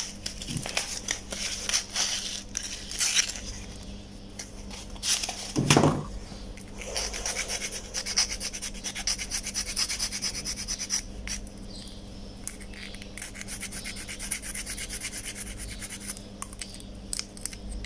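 Needle file rasping in quick short strokes over a black plastic part, smoothing the melted-plastic weld flush. A knock about six seconds in.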